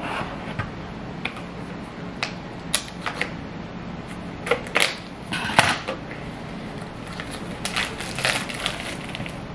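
Scissors snipping through tape and plastic packaging on a plastic bento lunch box, with the wrapping rustling as it is pulled off. Irregular sharp clicks and short scratchy rustles.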